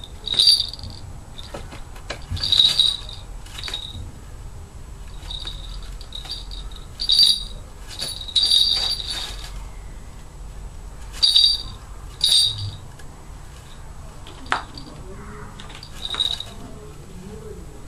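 Small falconry bells on a Harris hawk jingling in short, irregular shakes, about ten over the stretch, each a brief high metallic ring.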